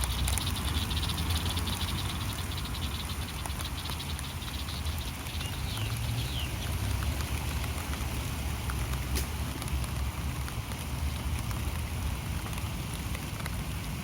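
Light rain falling steadily, an even hiss with many small scattered drop ticks. In the first few seconds a high, rapid pulsing call runs along with it.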